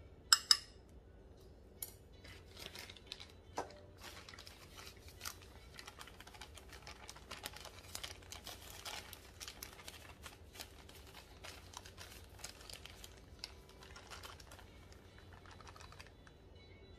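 Two sharp knocks of a small ceramic bowl against a stainless-steel mixing bowl as rice flour is tipped in. After that comes a long run of crinkling and rustling from a thin plastic flour bag being handled while flour is scooped out of it.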